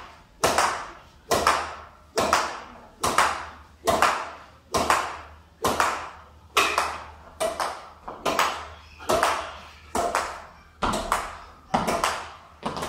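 A solo rally of badminton racket strokes sending a shuttlecock against a wall: sharp hits about every 0.8 seconds, each ringing briefly in the room.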